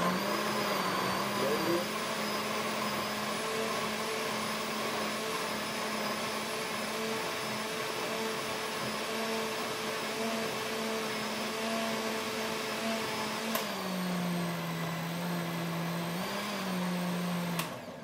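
Electric blender running steadily, pureeing watermelon rind pieces with ginger and water. Its motor whine drops lower about 14 seconds in and climbs back up, then the blender cuts off suddenly just before the end.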